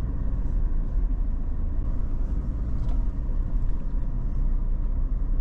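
Car driving on the road, a steady low engine and road rumble.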